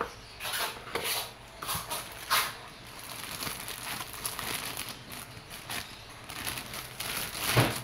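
Clear plastic bag crinkling and rustling as a pistol is pulled out of it by a gloved hand. The rustling comes and goes irregularly, with several louder crinkles in the first couple of seconds and another near the end.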